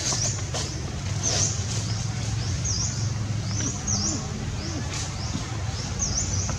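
Outdoor ambience: a short, high chirp repeated roughly once a second over a steady low hum, with a few faint clicks.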